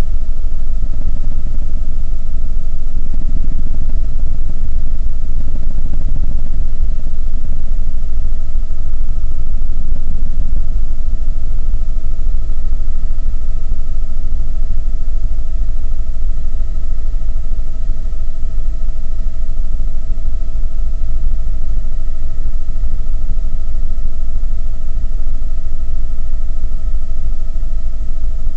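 Helicopter in flight heard from inside the cabin: loud, steady rotor and engine rumble with a constant high whine over it.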